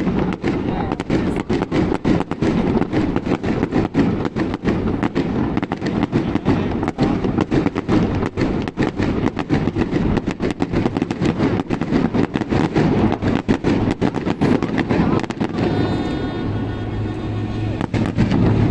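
Aerial fireworks going off in rapid succession, a dense run of sharp bangs and crackles over a steady low hum. Near the end the bangs thin out and a steady pitched tone grows louder.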